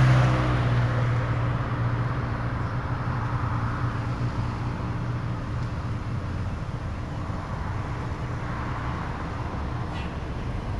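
Road traffic: a vehicle engine's steady hum, loud at first and fading over several seconds, over tyre and road noise.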